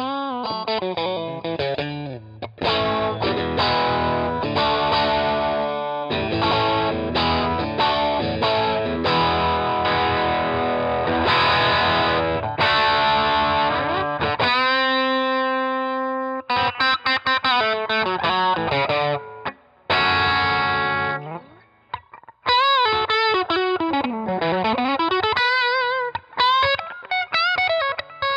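Fesley ST electric guitar played through overdrive: distorted chords and riffs, with a note held for a couple of seconds about halfway through. Near the end come single notes with string bends and wide vibrato.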